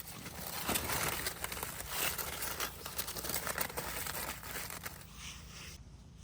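Crinkly rustling with many small clicks, like fabric or plastic being handled, easing off and stopping near the end.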